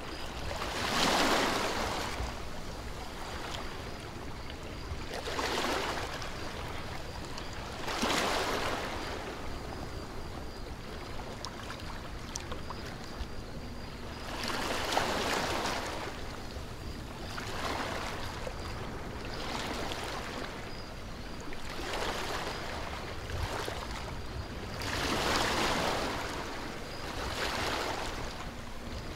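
Ocean surf: waves wash in and recede, about a swell every few seconds.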